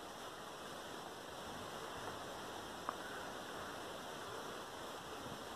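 Steady faint hiss of background noise, with a single short click about three seconds in.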